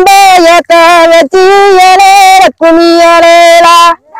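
A woman singing a Tamil kummi folk song unaccompanied, loud and close, the work song of women transplanting paddy. She holds long, steady notes in four phrases with short breaks for breath and stops just before the end.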